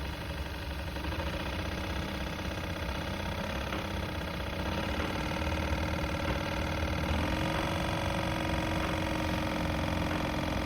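Worn heater blower motor in a Suzuki Every (DA17) van running with a loud abnormal noise over the idling engine. Its whine steps up in pitch about five seconds in and again about seven seconds in.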